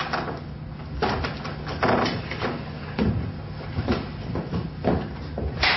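A series of about seven sharp impacts at irregular intervals over a steady low hum.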